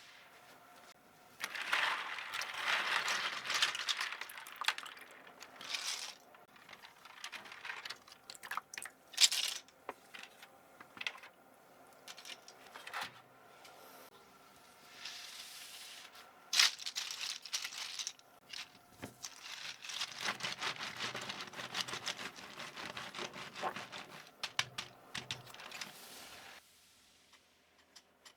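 Cleaning a computer keyboard: stretches of rubbing and scrubbing against plastic, with sharp clicks and taps of hard plastic parts between, stopping near the end.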